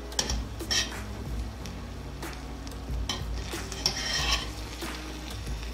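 Perforated steel spoon scraping and clinking against the stainless steel pot as it lifts and turns freshly steamed rice, in a scattered series of short scrapes and clicks.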